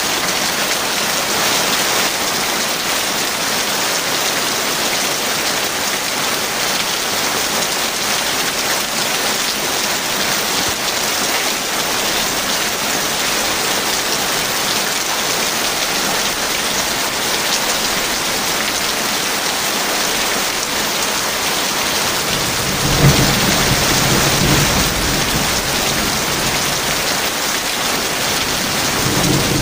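Heavy rain falling steadily, with a rumble of thunder rolling in about three-quarters of the way through and another beginning near the end.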